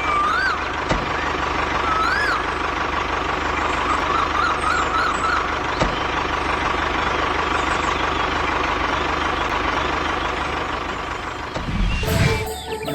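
Steady engine running noise, with a few short warbling whistle-like tones in the first half. The engine noise breaks off near the end.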